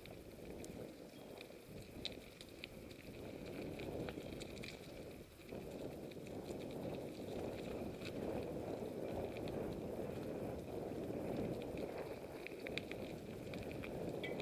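Mountain bike rolling along a dirt and gravel trail: a steady rumble of tyres and wind on the microphone, with scattered light clicks and rattles from the bike over the rough surface.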